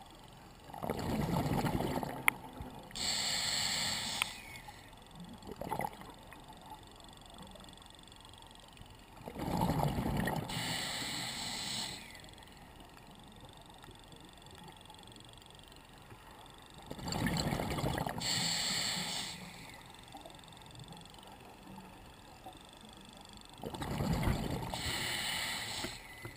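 Scuba diver breathing through a regulator, recorded underwater inside a camera housing: four breaths about seven seconds apart, each a low bubbling rumble of exhaled bubbles followed by the hiss of the regulator on the inhale.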